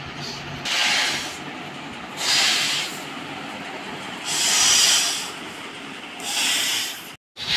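Latex balloon being blown up by mouth: four breathy puffs of air pushed into it, about one every two seconds.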